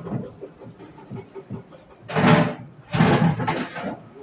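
Front casing of a Viessmann wall-hung gas boiler being fitted back onto the unit: two loud scraping clatters about two and three seconds in, over light handling knocks.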